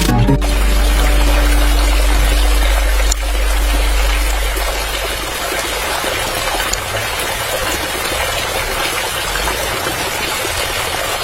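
Water running and splashing steadily, with a low motor hum under it for the first few seconds.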